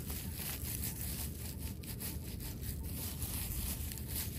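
Metal detector search coil scraping and rustling through wood-chip mulch as it is swept back and forth, a rough irregular crunching with no let-up.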